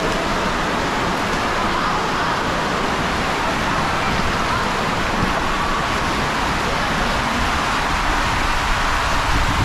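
Steady rush of water and a rider sliding through the enclosed tube of a ProSlide PIPEline water slide, with a little more low rumble near the end.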